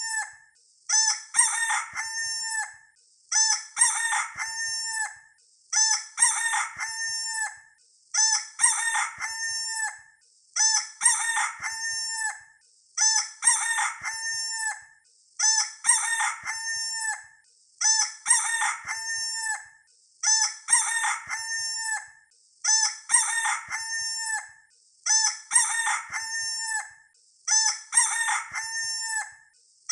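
Rooster crowing cock-a-doodle-doo, the same recorded crow repeated identically about every two and a half seconds as a looped sound effect.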